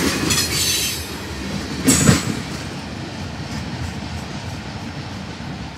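Freight train cars rolling past on the rails, with clanks and brief high metallic wheel squeals in the first two seconds. The rumble then fades steadily as the end of the train moves away.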